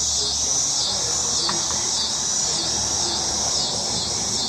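Loud chorus of insects: a steady high buzz that swells and dips about one and a half times a second, with a faint click about one and a half seconds in.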